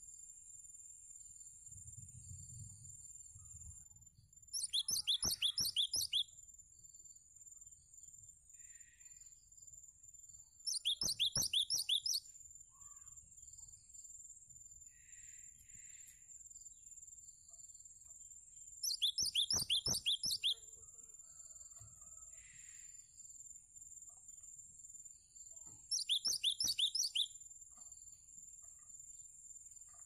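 Cinereous tit (gelatik batu) calling in four bursts, each a rapid run of repeated sharp, high notes lasting about a second and a half, with a few faint softer notes in between.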